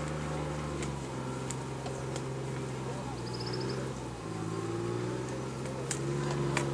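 Tractor engine running steadily under load as it drives through a flooded paddy, its steady low note shifting about a second in and again near four seconds.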